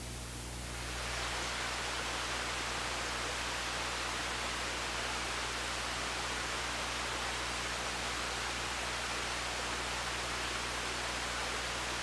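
A steady, even hiss with no distinct events. It swells about a second in and then holds level.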